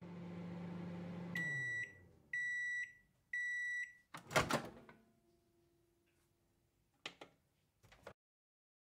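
Microwave oven running with a low hum that winds down, then three high beeps as the timer runs out. The door is unlatched with a loud clunk, and a couple of short clicks follow near the end.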